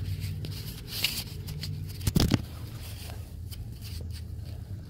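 Metal clicks and clinks of a ratchet socket wrench and its extension being handled and fitted together, with a louder double clack about two seconds in, over a steady low hum.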